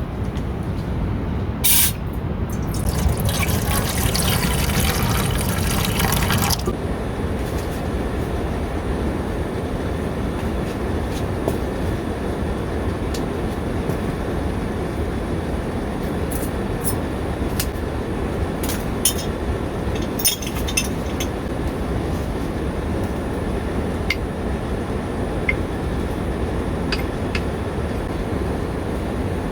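Water poured into a pot or container for about four seconds, followed by a few small clinks and knocks, over a steady low rushing noise.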